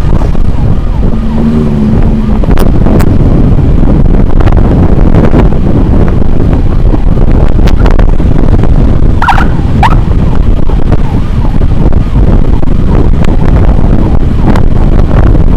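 Motorcycle riding at speed with heavy, steady wind rumble on the microphone and traffic noise underneath. A couple of short high tones sound about nine seconds in.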